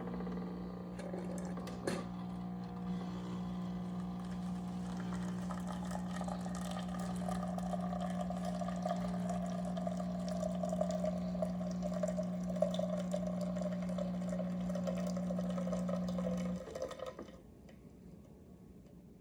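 Zulay Magia super-automatic espresso machine's pump humming steadily while it brews a cappuccino, with liquid pouring into the cup, after a couple of clicks in the first two seconds. The pump cuts off about seventeen seconds in.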